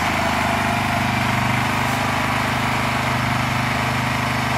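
Ryobi 2200-watt inverter generator running steadily: a pretty loud, even engine hum with a hiss above it.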